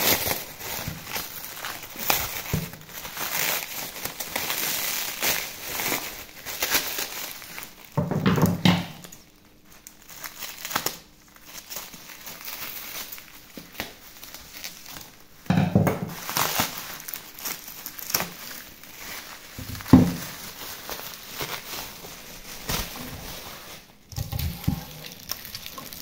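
Clear plastic wrapping crinkling and tearing as it is pulled and cut off rolled PVC marble sheets, with a few louder knocks from handling the rolls.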